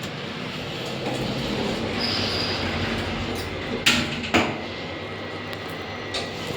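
EM lift car travelling upward: a steady mechanical running rumble and hiss from the cab and hoistway, with a brief high whine about two seconds in and two sharp clicks a little after four seconds.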